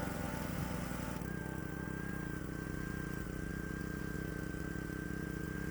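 An engine running steadily at idle, with a thin, steady high whine joining in about a second in.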